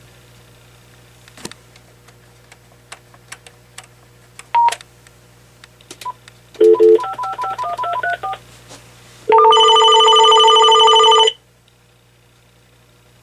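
Telephone keys clicking and a single key beep, then a quick run of dialing tones, then a loud two-second telephone ring that cuts off sharply.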